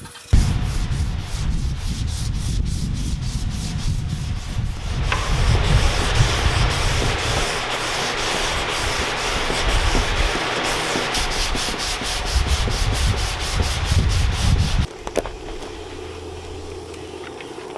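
Sanding: rapid, regular rubbing strokes, about four a second, which stop about fifteen seconds in, leaving a low steady hum.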